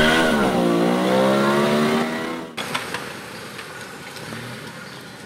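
A revving car engine sound effect: its pitch drops, then holds steady, and it cuts off suddenly about two and a half seconds in. A quieter outdoor background noise follows.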